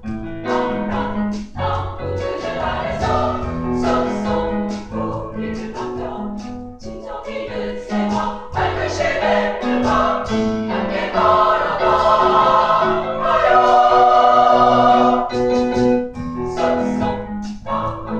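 Women's choir singing with piano accompaniment, building to its loudest about two thirds of the way through before easing back.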